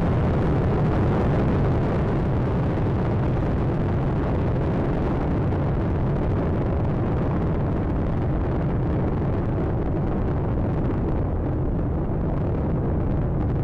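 Space Shuttle Atlantis's solid rocket boosters and main engines during ascent: a loud, steady, deep rumble, its upper hiss thinning toward the end.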